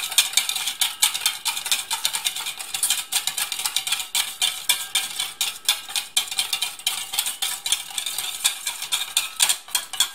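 Wire whisk beating a mustard vinaigrette in a stainless steel bowl: fast, continuous clicking and scraping of the wires against the metal as olive oil is added slowly to emulsify the dressing.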